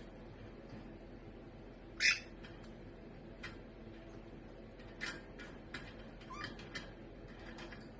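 Green parrot calling: one loud, short, harsh squawk about two seconds in, then a few short chirps and clicks.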